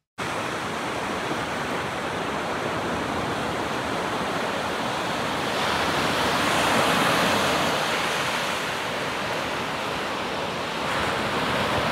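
Sea surf washing on the shore: a steady hiss of breaking waves that swells louder around the middle and again near the end.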